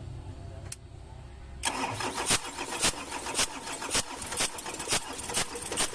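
Mitsubishi Canter's 4M50 four-cylinder diesel engine starting up about a second and a half in, then running with a sharp knock about twice a second. The truck has a hard-starting problem that the mechanic puts down to the glow plugs.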